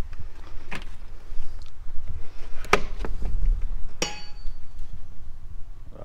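Clicks and metallic clinks of a door's lock, keys and latch as the door is unlocked and swung open, with a short metallic ring about four seconds in, over a low rumble.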